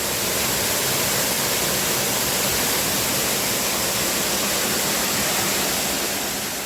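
Steady rushing of falling water, such as a course waterfall, fading out near the end.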